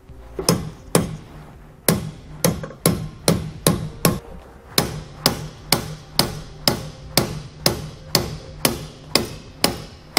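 A hammer strikes a socket held against a trailer leaf-spring eye to drive out the old suspension bushing, which is too tight to push out by hand. About twenty sharp blows land at roughly two a second, with a short pause after the first two.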